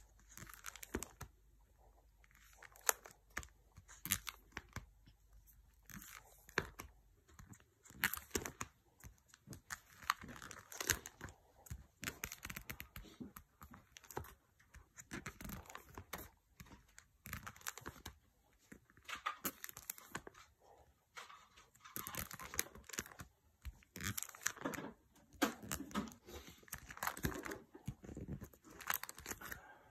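Plastic binder pocket sleeves holding trading cards crinkling and rustling as pages are turned and pressed flat by hand, with irregular clicks and taps.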